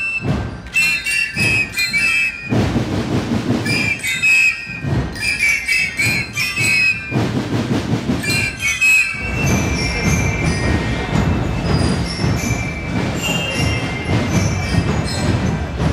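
School marching band playing in the street: a shrill melody on massed flutes over drums. After about eight seconds the flute melody drops away and mainly drumming and crowd noise carry on.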